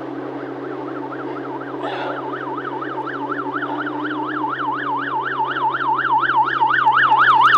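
Emergency-vehicle siren in a fast yelp, its pitch sweeping rapidly up and down. It starts faint about a second in and grows steadily louder as the vehicle approaches.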